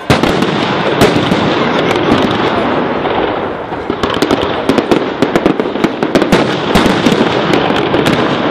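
Fireworks display: aerial shells bursting one after another, sharp bangs over a constant crackle. A heavy bang comes right at the start and another about a second in, and from about four seconds in the bangs come thick and fast.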